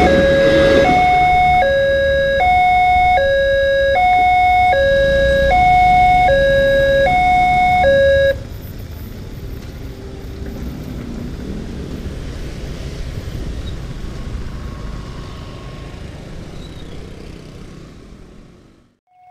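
Railway level-crossing warning alarm sounding a two-note alternating chime, each note held under a second, over the low rumble of a passing train. The alarm cuts off suddenly about eight seconds in, the sign that the train has cleared the crossing. Motorcycle engines then run as traffic crosses the tracks.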